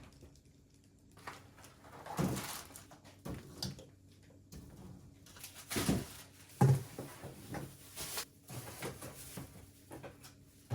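Food containers and packages being handled and set down while a refrigerator is stocked: scattered soft knocks and rustling at uneven intervals, the sharpest knock about two-thirds of the way through.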